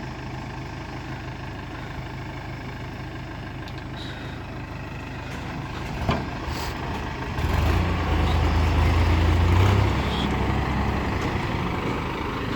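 Heavy diesel engines of a tractor and backhoe loader running. A single knock comes about halfway through; soon after, the engine note grows louder and deeper for a couple of seconds as the machine works hard, then eases back a little.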